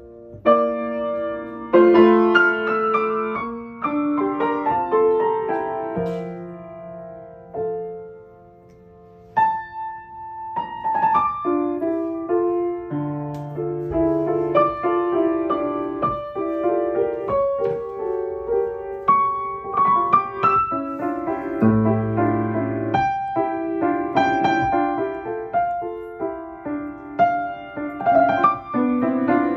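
Yamaha grand piano played solo, a piece of chords and melodic lines with sustained notes. The playing dies nearly away about eight seconds in, then resumes and continues.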